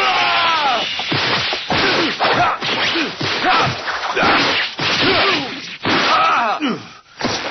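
Cartoon fight sound effects: a rapid run of punch whooshes and smacks, with shouts and grunts sweeping up and down in pitch over them.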